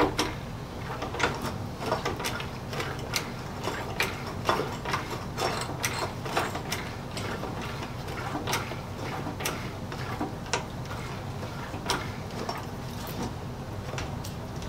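Light, irregular metal clicks and knocks, about one or two a second, from handling an Enerpac hydraulic hand pump and its cylinder, over a steady low hum.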